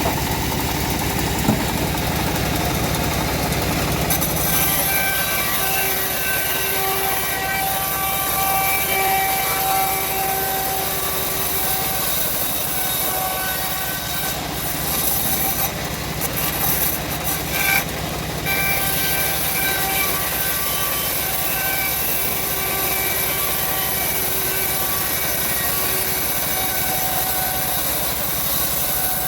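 Homemade bandsaw mill running steadily while its blade cuts through a teak log, with a thin whine that comes and goes.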